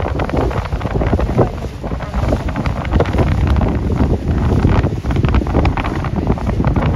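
Wind buffeting the microphone on a moving boat, a loud, gusty low rumble over the rush of water past the hull.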